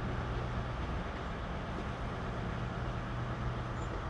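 Steady low hum of diesel train engines running, within the general noise of a busy railway station.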